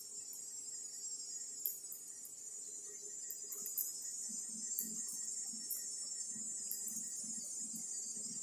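Steady high-pitched chirring of insects. From about halfway, a soft low pulsing sound of about two or three beats a second runs under it.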